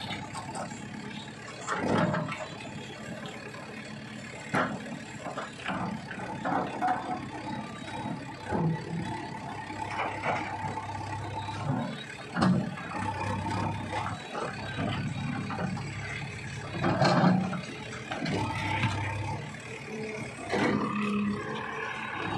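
JCB backhoe loader's diesel engine running under load, rising and falling as the backhoe arm pushes a boulder, with sharp knocks now and then.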